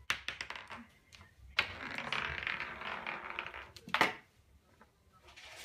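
A small hard toy ball clattering and skittering across a hardwood floor as a cat bats it, with quick ticking clicks, then a longer stretch of scuffling paws, and a sharp knock about four seconds in.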